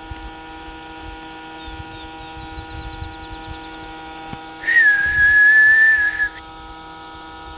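A person whistles one steady, high note for about a second and a half, a little past the middle, to call the puppy back. Under it runs a constant hum.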